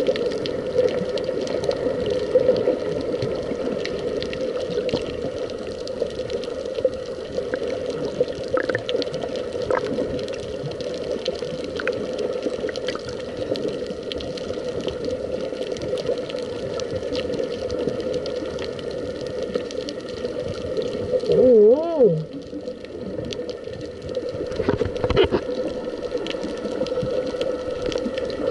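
Underwater sound heard through a camera's housing: a steady muffled hum with scattered crackling clicks. About three quarters of the way in comes a brief wavering tone that glides up and down.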